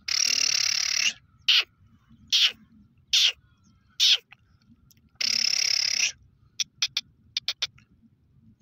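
Male black francolin calling: a harsh, grating note about a second long, four short notes that each drop steeply in pitch, a second long harsh note, then a quick run of short clicks near the end.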